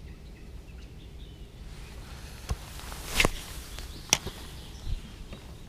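A few sharp clicks and knocks from a spinning rod and reel being handled during a jerky retrieve, the loudest about three and four seconds in, over a faint low rumble.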